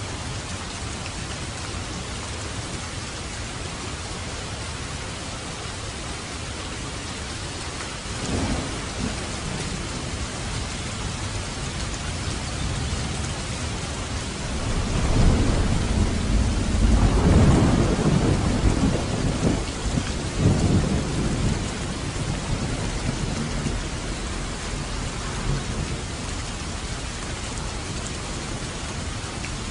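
Steady rain with a roll of thunder: a short low rumble about eight seconds in, then a longer, louder rumble swelling from about fourteen seconds and dying away some eight seconds later.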